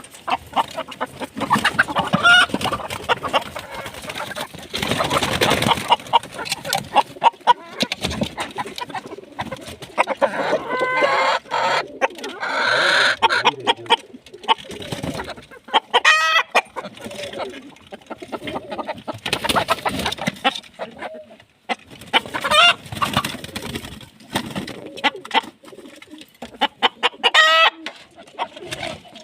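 Golden Misri chickens clucking and calling, with short calls every few seconds over scattered clicks and rustling.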